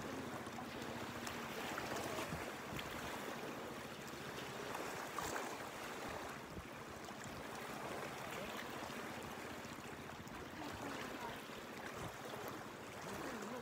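Choppy lake waves washing and slapping against shoreline rocks, a steady wash of water with a few small splashes.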